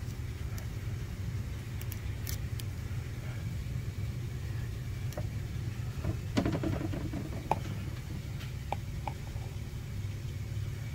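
Steady low background hum with a few faint clicks, and a short rustle of handling noise about six seconds in.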